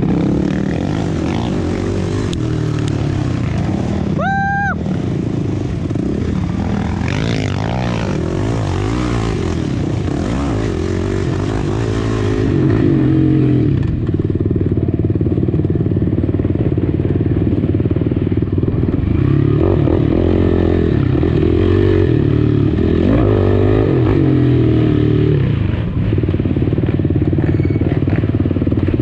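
Yamaha sport quad's engine revving up and easing off over and over at race pace, getting louder from about twelve seconds in. A short high whistle-like tone rises and falls about four seconds in.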